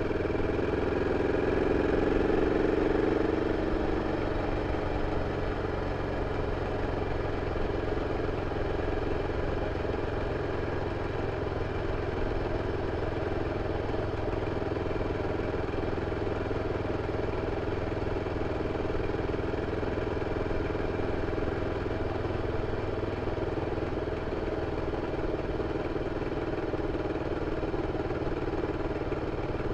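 BMW F 650 CS motorcycle's single-cylinder engine running through its stock exhaust, a little louder for the first few seconds, then holding a steady note.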